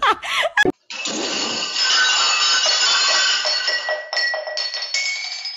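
Ringing, clinking clatter of metal or glass, with the tones held for a few seconds and fresh strikes about four and five seconds in.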